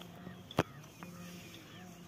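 A single sharp knock, about halfway through, over a low steady hum and faint high chirps.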